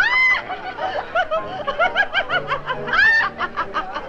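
A woman laughing uncontrollably in quick, high-pitched bursts, breaking into a shriek of laughter at the start and again about three seconds in.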